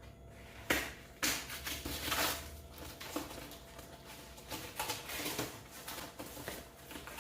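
Handling noise from unpacking the parts of a flat-packed stainless steel table: two sharp knocks about a second in, a stretch of rustling, then scattered small clicks and knocks.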